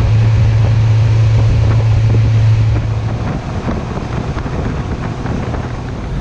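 Yamaha 115 outboard motor running with the boat under way: a steady low hum over wind buffeting the microphone and water rushing in the wake. About three seconds in the engine hum drops back, leaving mostly wind and water noise.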